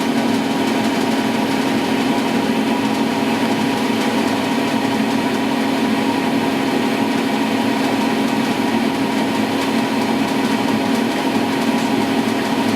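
Blanchard Model 2242 42-inch rotary surface grinder running steadily under power: a constant machine hum with a strong low tone.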